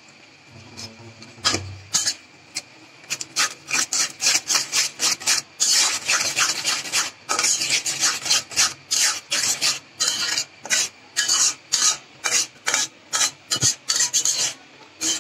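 Flat metal spatula scraping against the side and bottom of a metal pot while stirring thick curry, in quick repeated rasping strokes about three a second, starting about a second and a half in.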